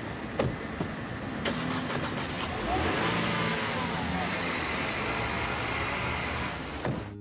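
A few sharp clicks from a car door lock and handle, then the car door being opened. Under it, street traffic gets louder about three seconds in as a vehicle passes, its pitch sliding down.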